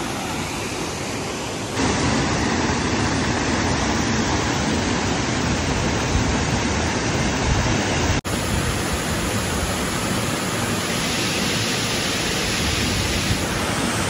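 Steady rush of water from a waterfall and the rocky stream below it. It steps up in level about two seconds in and breaks off for a moment just past halfway.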